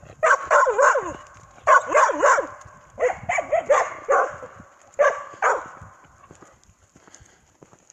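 Herding dog barking and yipping in four quick bursts of calls, some falling in pitch, over the first five and a half seconds.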